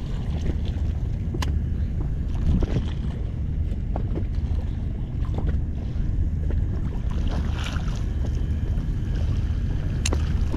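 Wind buffeting the microphone over choppy water lapping at an inflatable boat, with a couple of sharp clicks, one about a second and a half in and one near the end.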